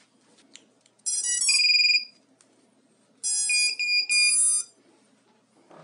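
FPV racing quadcopter beeping as it powers up: a quick run of electronic tones ending in a held beep, then about a second later a second run of beeps. These are the start-up tones heard when a quad's battery is connected.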